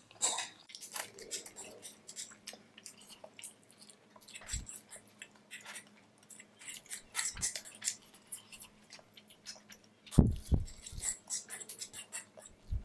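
Close-miked chewing of noodles, with many small wet mouth clicks and smacks. A couple of low thumps come about ten seconds in.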